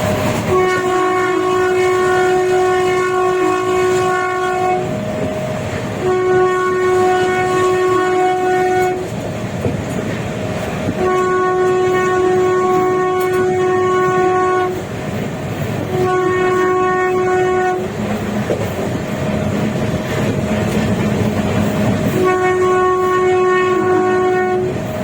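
Indian Railways WAP-class electric locomotive's air horn honking five times, each blast one steady note lasting about two to four seconds, over the continuous rumble and clickety-clack of the moving train.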